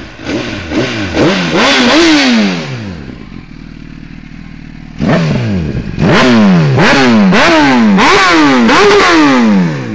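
Honda CBR1000RR SC57 inline-four with an aftermarket LeoVince exhaust, revved hard in quick throttle blips while the bike stands still. A cluster of blips, a couple of seconds of idle from about three to five seconds in, then another run of sharp blips, each rising and falling fast.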